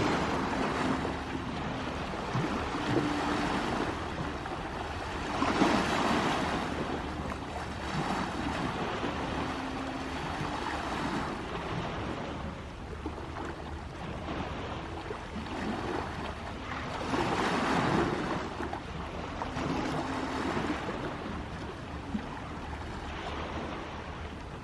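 Sea waves washing in and breaking, a steady surf that swells louder about six seconds in and again about eighteen seconds in.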